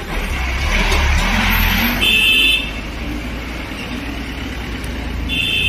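A bus passing close, its engine giving a heavy low rumble, with a rush of noise in the first two seconds. A vehicle horn sounds twice: a short blast about two seconds in, and a longer one starting near the end.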